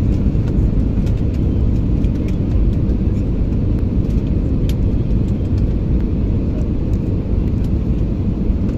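Steady low rumble of an airliner's jet engines and rushing airflow heard inside the passenger cabin during the descent to land, with a faint click near the middle.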